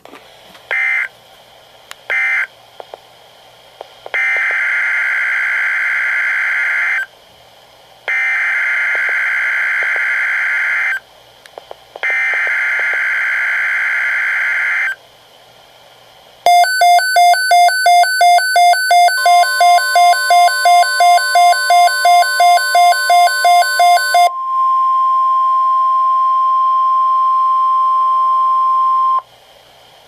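NOAA Weather Radio SAME alert data: three short buzzy end-of-message bursts, then three identical buzzy data bursts of about three seconds each, the header of a new alert. A Midland weather alert radio then sounds its pulsing alarm beep, about two beeps a second. The steady 1050 Hz warning alarm tone joins partway through and carries on alone after the beeping stops.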